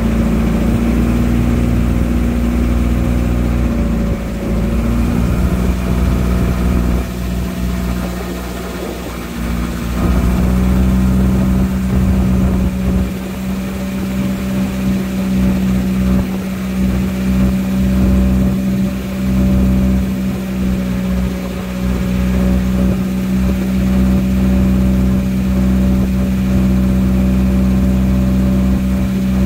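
Engine of a motorized wooden river boat running under way. It drops slightly in pitch about five seconds in, dips in level for a few seconds around eight seconds, then runs steadily again.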